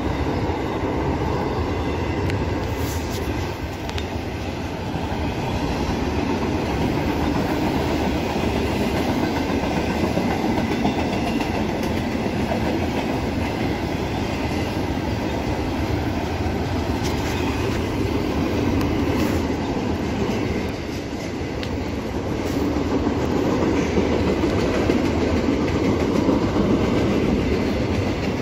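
Double-stack intermodal container train rolling past, its steel wheels rumbling steadily on the rails, with a few faint clicks.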